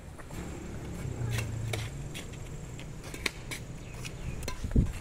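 Badminton being played on a concrete court: racket strings striking the shuttlecock and shoes scuffing, heard as several sharp clicks at irregular intervals, the loudest near the end.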